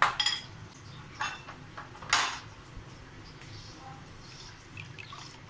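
A utensil clinking against a cooking pan of heating water: a few sharp clinks in the first two seconds, the loudest about two seconds in.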